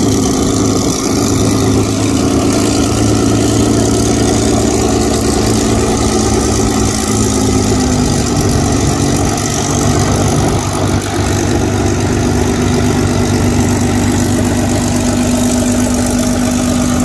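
Supermarine Spitfire's Rolls-Royce Merlin V12 engine running steadily at idle while the aircraft taxis.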